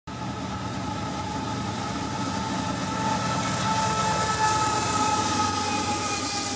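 Train running, with a steady two-note whine over a dense, fast rattling rumble.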